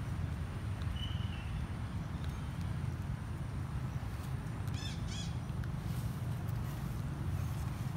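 Outdoor background with a steady low rumble, a faint short chirp about a second in, and two short high-pitched calls in quick succession about five seconds in.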